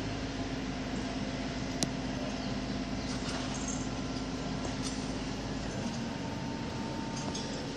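Steady low mechanical hum over a continuous background rush, with a single sharp click about two seconds in and a higher steady tone joining near the end.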